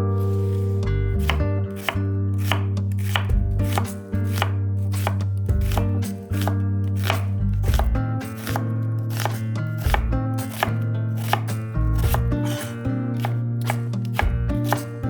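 A kitchen knife chopping on a cutting board: quick, repeated strokes, several a second, with short pauses. Background music with a steady bass runs underneath.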